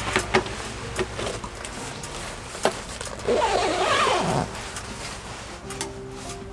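Rustling and crinkling of a nylon down sleeping bag as a person wriggles into it on a camp cot, with scattered sharp clicks. About halfway through comes a louder sound of about a second with a wavering pitch.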